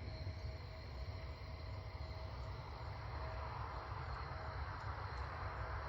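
Faint evening outdoor ambience: crickets trilling steadily, over a low steady rumble.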